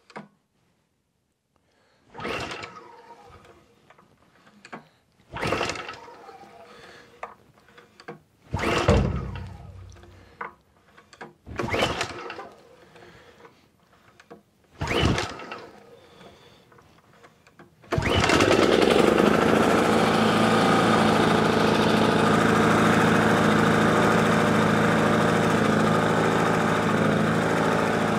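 Exmark Commercial 30 push mower's Kawasaki FJ180 engine being pull-started cold on choke after sitting all winter: five pulls that do not catch, about three seconds apart, then it starts on the next pull about 18 seconds in and keeps running steadily.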